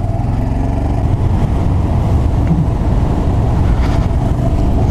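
Honda Grom's 125 cc single-cylinder four-stroke engine pulling the bike along at a steady pace, a little louder in the first second, with wind noise over it.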